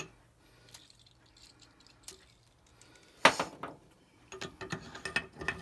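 Metal tools being handled: one sharp clank about three seconds in, then a run of light clicks and clinks near the end.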